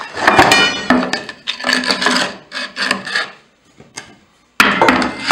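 Steel pry bar and wooden boards knocking and scraping against each other and the machine tool's base as the lever is set under it, with sharp metallic clanks that ring briefly. The handling goes quiet for about a second near the end, then a loud burst of clatter.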